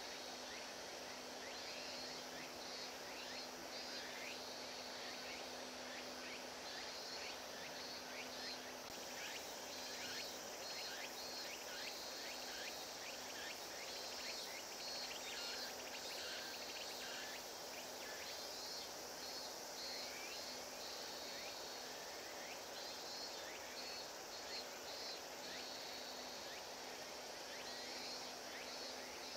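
Outdoor ambience: insects chirping in repeated short pulsed trills, over faint background noise and a steady low hum that drops out for a while in the middle.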